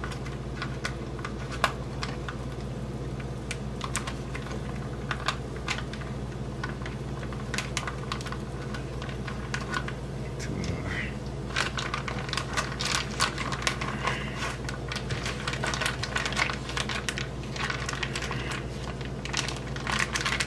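Bacon frying in a pan, with a steady run of crackles and pops that grow thicker about halfway through, over a steady low hum.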